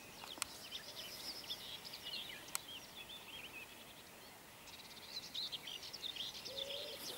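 Faint outdoor birdsong: songbirds singing in quick chirps and trills that pause for a second or so midway, with two sharp clicks, one just after the start and one about two and a half seconds in.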